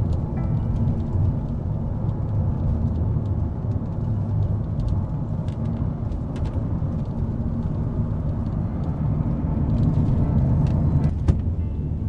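Car driving on the road: a steady low rumble of tyre and engine noise, with one brief sharp click near the end.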